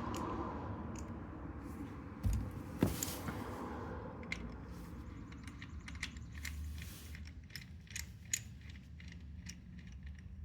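Small metal tools clinking and clicking as they are handled, with a dull knock a little over two seconds in.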